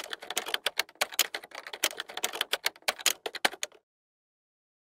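Rapid run of key clicks, as of typing, many strokes a second, which cuts off suddenly shortly before the end into dead silence.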